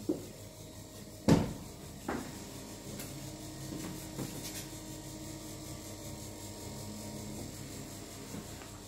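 A sharp knock about a second in, a lighter knock a second later, then a low steady hum.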